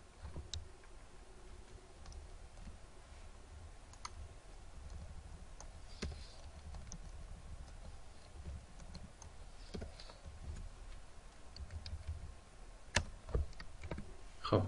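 Scattered clicks of computer keyboard keys and a mouse, with a few sharper clicks near the end, over a faint low hum.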